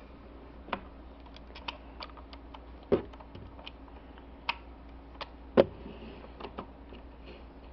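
Irregular plastic clicks and taps from a ToQ Changer toy being handled, with two louder knocks about three and five and a half seconds in.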